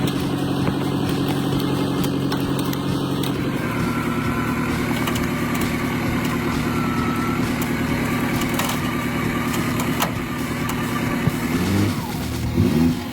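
Toyota Hilux pickup engine running steadily, its note changing about three and a half seconds in, with a faint whine over it for a few seconds and a couple of short revs near the end.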